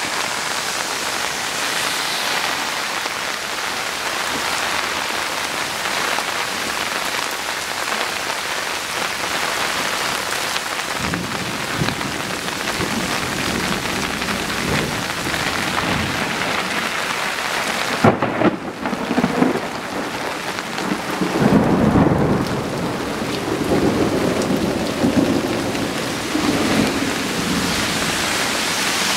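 Heavy rain pouring steadily on the ground and plants during a thunderstorm. Thunder rumbles through the second half, with a sharp crack about two-thirds of the way in and the loudest rolling rumble soon after.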